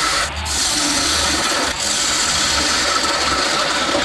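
Wood lathe running as a handheld turning chisel cuts into the spinning wooden blank: a steady scraping hiss over the low hum of the lathe motor. The cut breaks off briefly twice.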